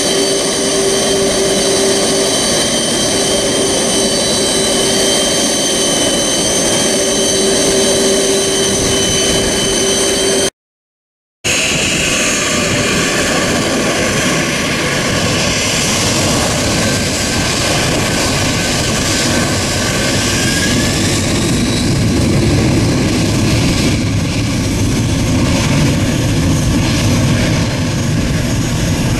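Boeing 747-400 freighter's four jet engines. First a steady whine with a rushing roar as the jet taxis close by. After the sound drops out for about a second, a broad jet rumble follows, growing deeper and fuller as the engines go up to takeoff power and the jet starts its takeoff roll.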